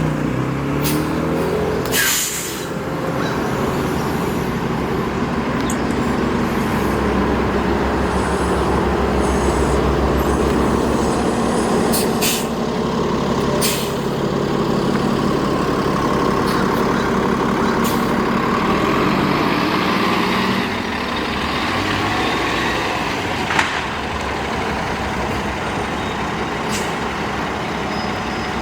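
City transit bus's diesel engine running, with a short loud air-brake hiss about two seconds in. The engine runs steadily, then drops in level about twenty seconds in.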